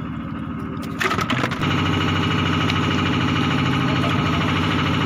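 Fishing boat's engine running steadily, a constant mechanical hum that gets louder and fuller about a second in.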